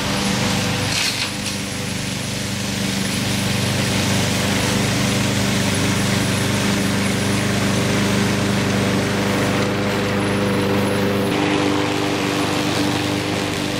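A 21-inch Troy-Bilt TB360 walk-behind lawn mower's small petrol engine running steadily under cutting load as it is pushed across thick grass. Its note shifts about eleven seconds in, as the mower comes close by.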